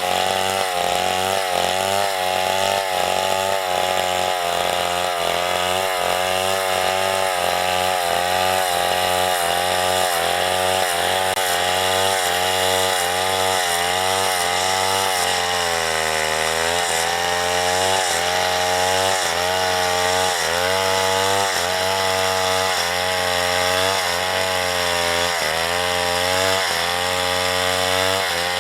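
Two-stroke chainsaw running under load as it cuts wood, its pitch wavering throughout and sagging lower about halfway through before picking back up.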